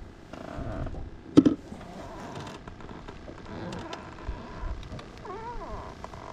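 Wind rumbling on the microphone, with one sharp knock about one and a half seconds in.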